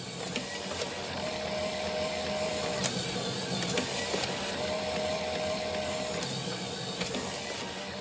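3D-printed paper folding machine running, its Arduino-controlled DC motors turning plastic gears and rubber-covered folding rollers with a steady whir and scattered sharp clicks. A higher hum of about a second and a half comes twice, a few seconds apart.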